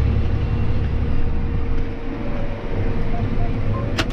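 John Deere tractor engine running steadily, heard from inside the cab as a low rumble, with two sharp clicks close together near the end.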